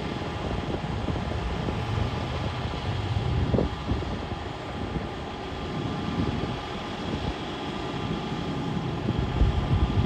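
Diesel engine of a wheel loader working at a silage pile, running steadily as a low rumble with a steady whine over it.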